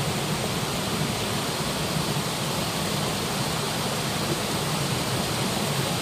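Waterfall pouring steadily: an even, unbroken rush of falling water.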